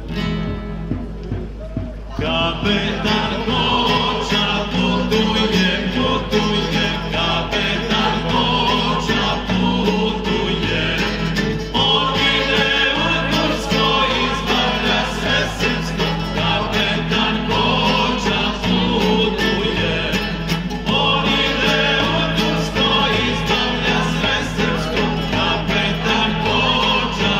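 A mixed choir singing a song live with acoustic guitar accompaniment, heard through the stage sound system. The sound is thin for the first two seconds, then the full singing comes in and runs on steadily.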